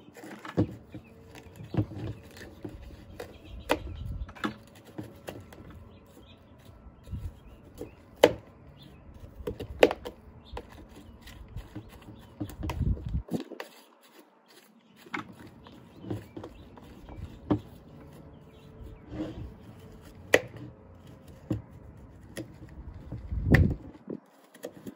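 Irregular sharp clicks and taps of food scraps being cut into small pieces inside a takeout container, with bursts of low rumble from handling.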